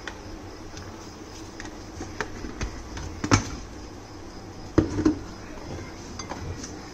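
Spoon and kitchen containers knocking and clinking against the countertop: a few scattered knocks, the loudest about three seconds in and two close together near five seconds, over a steady low hum.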